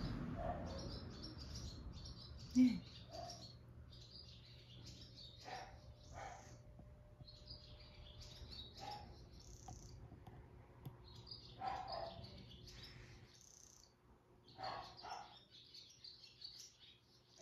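Barn swallows twittering in quick bursts of high chirps, repeated several times. A single brief, louder low sound comes about two and a half seconds in.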